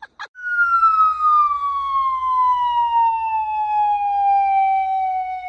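Long whistle-like tone gliding slowly and steadily down in pitch, starting about half a second in and still falling at the end: a descending-whistle sound effect added in editing.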